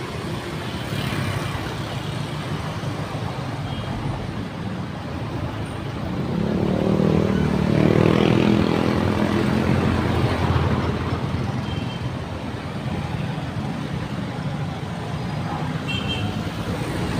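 Road traffic noise, with a vehicle engine growing louder and passing about six to eleven seconds in.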